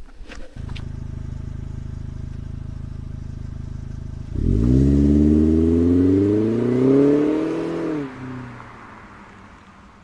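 A motor vehicle engine running steadily at a low pitch; about four seconds in it gets louder and revs up, its pitch rising for several seconds before it dies away.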